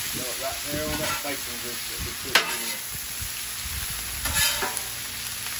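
Shredded cabbage sizzling on a Blackstone flat-top griddle as metal spatulas scrape and toss it, with one sharp clack of metal on the griddle about two seconds in.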